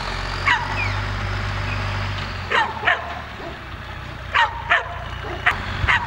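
A dog barking repeatedly, about seven barks, several of them in quick pairs, over the steady low running of the International 1455 XL's six-cylinder diesel engine with its aftermarket exhaust.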